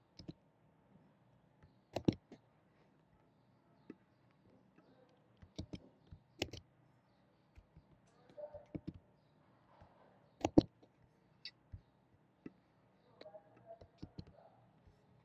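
Computer mouse and keyboard clicks, a dozen or so sharp clicks scattered with quiet gaps between them. The loudest comes about ten and a half seconds in. The clicks come from copying names and pasting them into spreadsheet cells.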